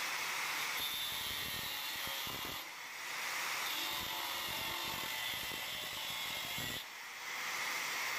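Angle grinder running with an abrasive disc grinding the rusty steel end of a hacksaw frame. It is steady and high-pitched, and the sound dips briefly twice.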